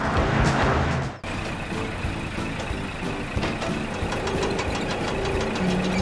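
Background music with a steady beat that cuts off about a second in, followed by a truck engine running steadily.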